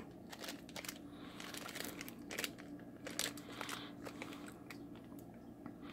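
Faint crinkling and rustling of small plastic zip-lock bags of electronic modules being picked up and handled, in scattered short crackles over a steady low hum.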